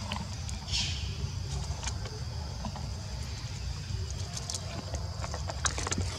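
Outdoor ambience: a steady high insect drone over a constant low rumble, with a short hiss about a second in. Near the end, a few sharp dry crackles as a baby macaque grabs and handles a dry leaf on stone.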